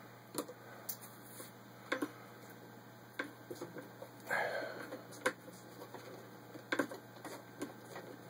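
Antique Willcox & Gibbs chain-stitch sewing machine turned slowly by hand at the handwheel, giving quiet clicks and light knocks at uneven intervals.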